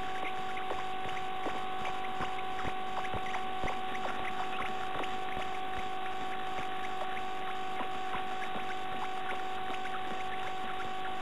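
Steady electronic hiss and a constant whine from the nest-box camera's microphone, with frequent small scratches and taps as the adult bird shifts in the nest and works the nest material over her chicks.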